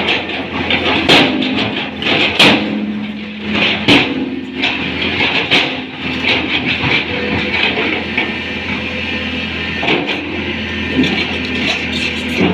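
Tata Hitachi 200 excavator running steadily at work, with several sharp metallic clanks and knocks at uneven intervals.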